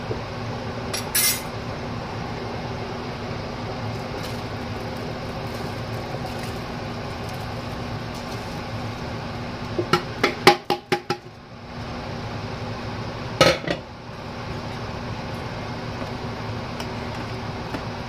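Metal tray knocking against the rim of a large aluminium cooking pot as soaked basmati rice is tipped into the boiling stock: a quick run of about six clanks around ten seconds in and one loud clank a few seconds later, over a steady hum.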